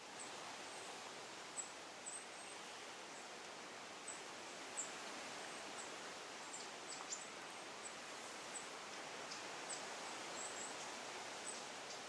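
Forest ambience: a steady hiss like wind through leaves, with short, very high-pitched chirps scattered irregularly, about one every second.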